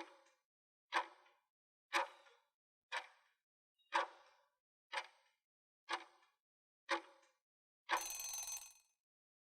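Countdown-timer sound effect: a clock-like tick once a second, eight times, then at about eight seconds a ringing bell-like tone about a second long that ends the countdown.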